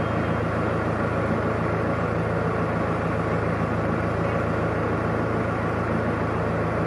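Narrowboat engine running steadily, a low even drone with no change in speed.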